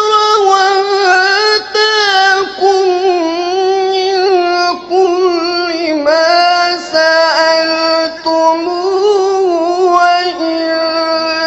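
A qari reciting the Quran in a melodic, drawn-out tajweed style. A high male voice holds long ornamented notes, with short breaks for breath between phrases, and is amplified through a microphone.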